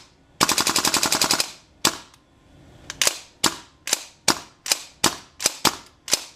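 PTS Mega Arms MKM gas blowback airsoft rifle firing, its bolt cycling with each shot. It fires a rapid full-auto burst of about a second, then about ten single shots in quick succession.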